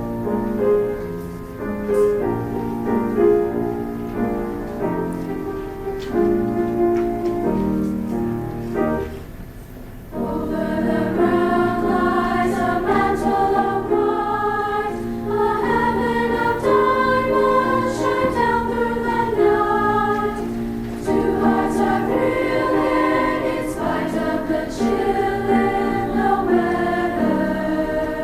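Women's choir singing long, sustained phrases. About nine seconds in there is a brief lull, then the choir comes back in louder and higher.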